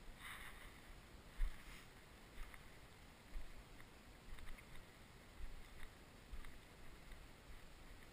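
Footsteps walking slowly through the dry stubble of a mown rapeseed field, with a dull thump about once a second and light crackling of dry cut stalks underfoot.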